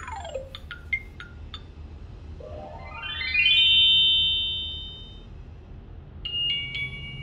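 Electronic sound effects from the speaker of a bonbebe 6in1 Mega Cube children's activity toy. It opens with a falling pitch sweep and a few short chime notes. About two and a half seconds in, a tone slides up in pitch and holds for a couple of seconds, the loudest part. Near the end a plinking electronic melody begins.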